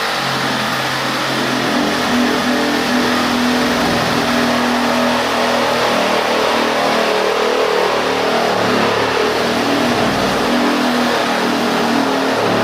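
Reciprocating saw with a tungsten carbide tipped brick-cutting blade sawing through brickwork and mortar, running continuously, its motor pitch wavering up and down as the load on the blade changes.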